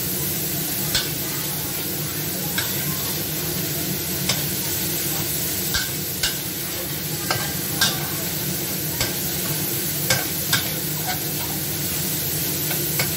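Ground pork sizzling in a metal wok as a metal spatula stirs and scrapes through it, with irregular sharp clinks of the spatula against the pan.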